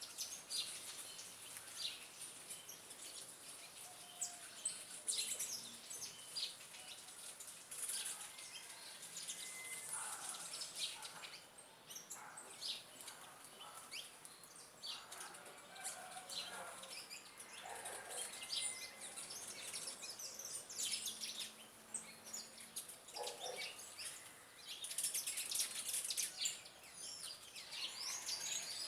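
Several small birds chirping and calling: many short high chirps overlapping, with a few lower calls mixed in and a denser flurry of chirping near the end.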